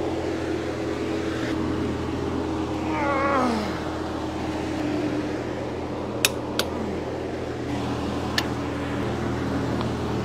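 Sharp metallic clicks from a long-handled wrench being worked on a car's wheel nut: a pair about six seconds in and a single one about two seconds later. They sound over a steady low hum.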